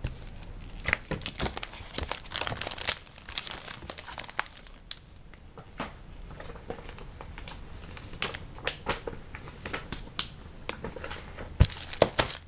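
Plastic bags of Lego pieces crinkling and rustling as they are handled, with a few sharp knocks near the end.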